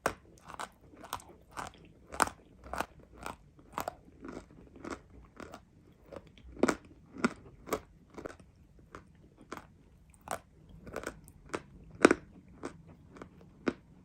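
Close-up chewing of crunchy edible clay (chalk): a steady run of crisp crunches, about two a second, with a louder crunch near the end.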